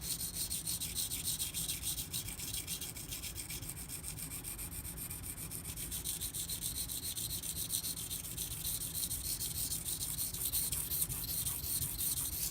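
Steel knife blade being stroked back and forth on a coarse water stone: a rapid, even scraping hiss. The edge is being ground down on one side to remove a small chip.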